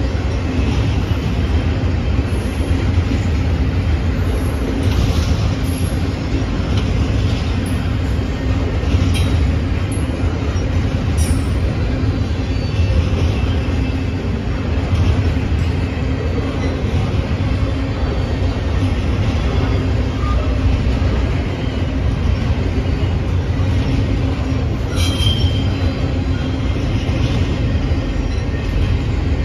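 Double-stack container cars of a freight train rolling past: a steady, heavy rumble of steel wheels on rail, with short squeals and knocks now and then. The clearest squeal comes near the end.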